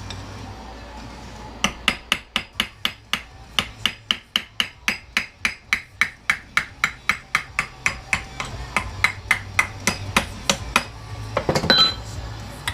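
Rapid, steady hammer blows on metal, about four a second, knocking the pressed-in pistons out of an aluminum ATV brake caliper by hand in place of hydraulic pressure. The hammering stops about eleven seconds in, followed by a brief scrape.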